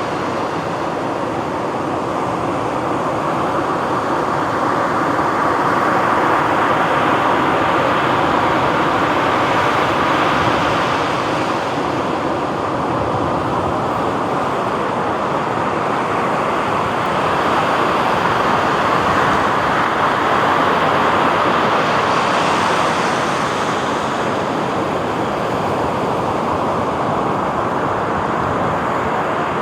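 Ocean surf washing on a beach: a steady rush of waves that swells louder twice, for several seconds each time, and eases back in between.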